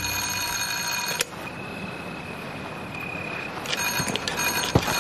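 Doorbell on an entrance intercom panel ringing as its button is held down: a single steady high tone for about two seconds, followed by a run of quick clicks.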